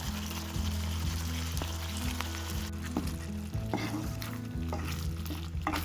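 Thick spinach gravy sizzling in a pan on the stove, stirred with a spoon. From about three seconds in, the spoon clicks and knocks against the pan.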